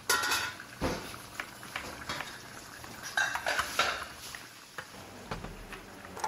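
Steel plates and utensils clinking and clattering in a small eatery, a run of irregular knocks and clinks, some with a brief ring.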